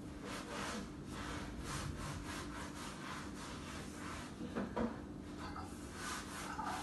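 Repeated rubbing strokes, about two a second, over a steady low hum, with a louder knock a little past halfway.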